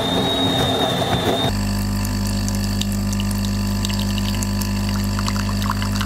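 Electric espresso grinder whirring with a high motor whine. About a second and a half in, it cuts to an espresso machine's pump humming steadily, with light drips and ticks near the end.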